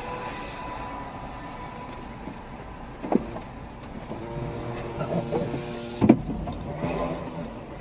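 Dashcam recording of a car crash on a snowy road. Under steady road noise there is a thud about three seconds in, then a steady pitched tone for nearly two seconds, and the loudest bang comes about six seconds in.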